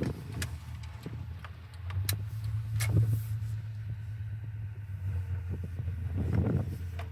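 2000 Honda Accord V6 engine running with a steady low hum that swells about two seconds in and again near the end, with a few sharp clicks over it. The owner is chasing a whirring noise on acceleration and a loss of power above about 3,500 rpm.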